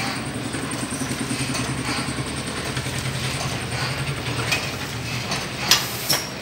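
Wire-processing machine running with a steady low mechanical hum that pulses rapidly and evenly. Two sharp clicks come in quick succession near the end.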